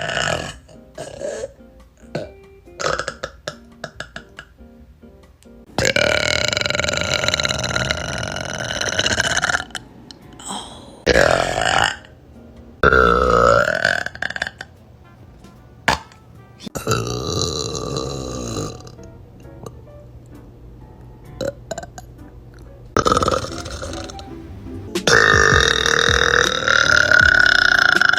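A series of burps by young women, one clip after another: short burps in the first few seconds, then several long drawn-out burps, the longest running several seconds near the end.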